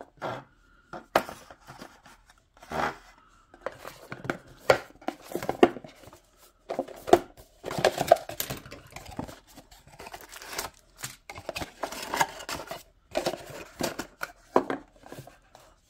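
Rigid paperboard packaging being handled: box and lid slid apart, rubbed and set down on a wooden table, giving irregular taps, knocks and scraping rubs.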